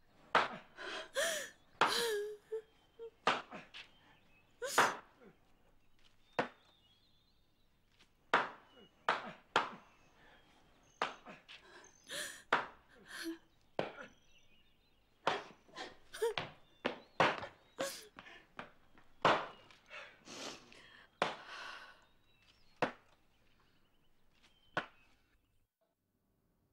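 Axe chopping wood: a long run of sharp wooden strikes, one to two a second, coming in bursts with short pauses between them.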